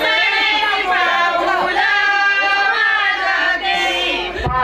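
Voices singing a song in one continuous melodic line, with a brief dull thump near the end.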